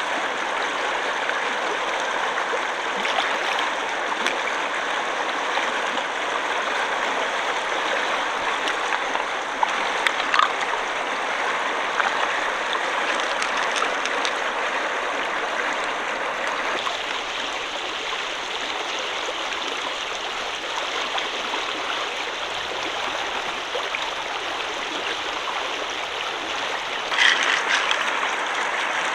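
Shallow flowing water running steadily, with a few short clicks or splashes.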